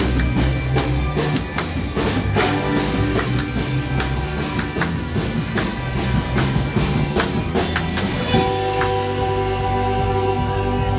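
Live band music: a drum kit keeps a steady beat under guitar and bass. About eight seconds in, the drumming thins out and held chords take over.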